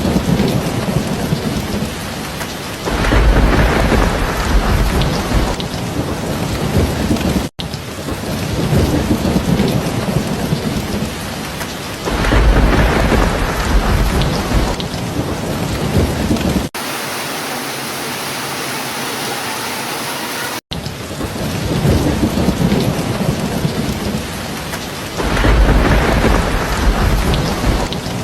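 Steady rain falling, with low rolling rumbles of thunder swelling up three times. The track cuts briefly a few times, and for a few seconds in the middle the rain sounds thinner and hissier, without the low rumble.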